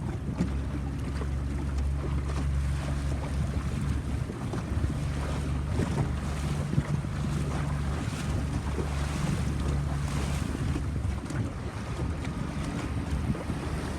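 A boat's engine running at a steady low hum, with wind buffeting the microphone and water splashing against the hull.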